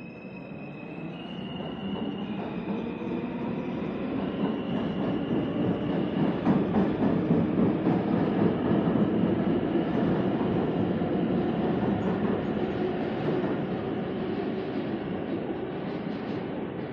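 New York City Subway R160 train with Alstom propulsion pulling out of a station. The traction motors give a whine that steps between pitches over the first few seconds, under a rumble of wheels on rails that grows loud around the middle and eases a little as the train leaves.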